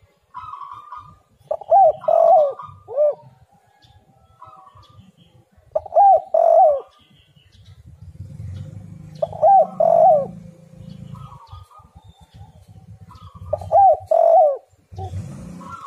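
Spotted dove (tekukur) cooing: four loud song phrases a few seconds apart, each a quick run of two or three coo notes. Fainter chirps from other birds fall between the phrases.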